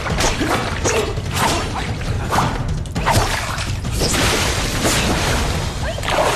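Film fight sound effects: a string of quick whooshes and hits, then water splashing and spraying from about four seconds in, over background music.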